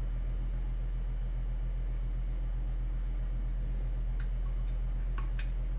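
Steady low electrical hum, with a few faint clicks and taps from about four seconds in as a battery pack is handled in its plastic desktop charger cradle.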